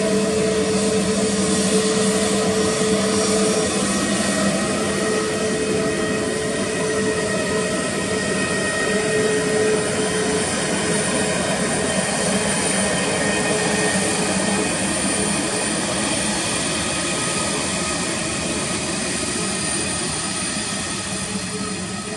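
Jet airliner's engines at takeoff power: a loud, steady rushing noise with several whining tones, fading over the last few seconds as the aircraft moves away.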